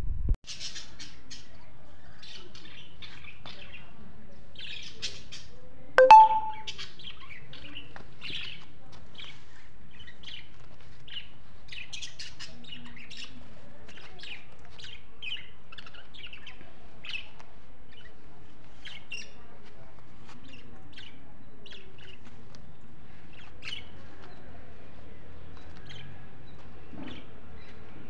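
Small birds chirping, with many short high chirps spread throughout, and one brief, much louder call or note about six seconds in.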